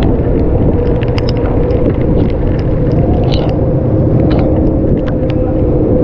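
Engine running steadily: a constant low rumble with a steady hum, and scattered light ticks over it.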